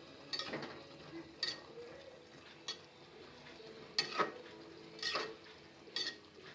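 A spoon stirring in a cooking pot, knocking and scraping against its sides six or seven times at an uneven pace, with the loudest pair of knocks about four seconds in.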